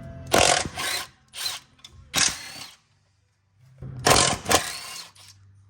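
Impact wrench running in several short trigger bursts on a bolt, then a pause of about a second and one longer burst near the end.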